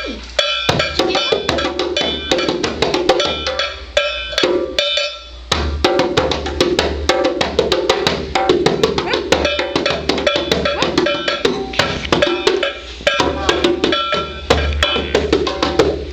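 Small ringing percussion instruments struck in fast, irregular succession, many strikes a second, with a short lull about five seconds in.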